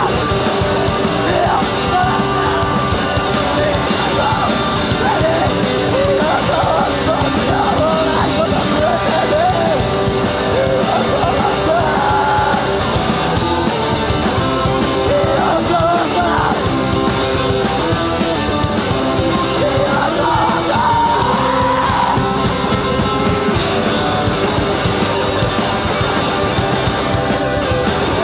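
Live rock band playing: electric guitars, bass guitar and drum kit, with a lead vocal singing over them.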